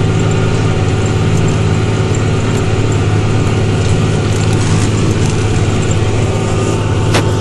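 New Holland TG285 tractor engine running steadily under load while pulling a four-furrow plough through the soil, a constant low drone. A brief click near the end.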